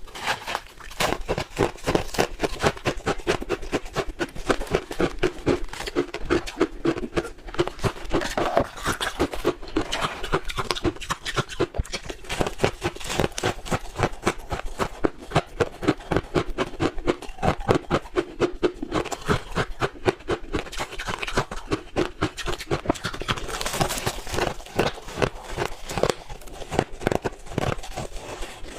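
Blended crushed ice being chewed in big mouthfuls close to the microphone: a steady run of crisp, squeaky crunches, a few per second.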